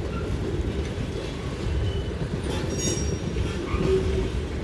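Freight train's open-top gondola cars rolling past, a steady low rumble of wheels on rail, with a brief faint wheel squeal about three seconds in.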